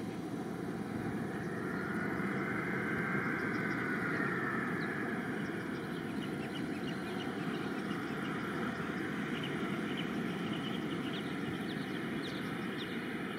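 Airbus A321 jet engines running at low power as the airliner rolls along the runway: a steady rumble with a faint whine that rises and falls in the first few seconds. Faint bird chirps come through, mostly in the second half.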